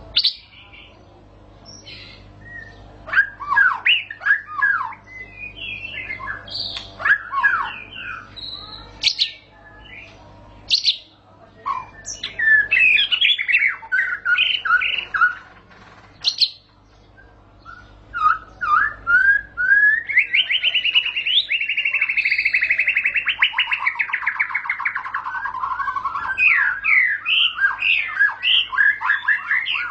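White-rumped shama (murai batu) singing: a run of varied, rapid whistled phrases, then about two-thirds through a long rolling trill that slides slowly down in pitch over several seconds, the long "ngerol" roll that songbird keepers prize.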